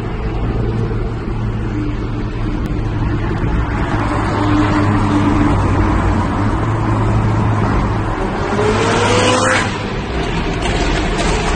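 McLaren 570S twin-turbo V8 with a catless straight-pipe exhaust, running at steady low revs, then revving up about eight seconds in and cutting off sharply near ten seconds. A few exhaust pops follow near the end.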